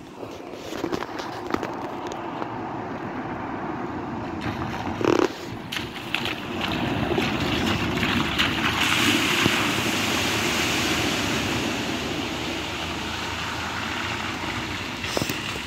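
A car driving through the shallow water of a ford, its tyres splashing and hissing on the wet road, building to a peak about nine to ten seconds in and then fading away.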